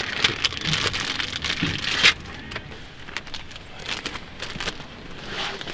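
Plastic bags and packaging rustling and crinkling as they are handled, with small clicks and knocks, busiest in the first two seconds and quieter after.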